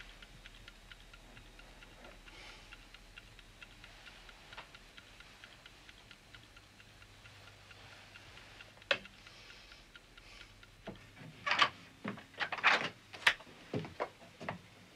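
Bedside wind-up alarm clock ticking steadily and faintly. About nine seconds in comes a single sharp knock, and in the last few seconds a run of louder irregular clatters and rustles, fitting coats and hangers being handled.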